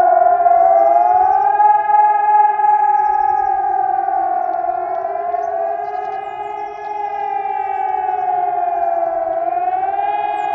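Several Helin HES electronic civil-defence sirens sound together, their overlapping tones slowly falling and rising in pitch about every four to five seconds: the rising-and-falling howl that warns the population.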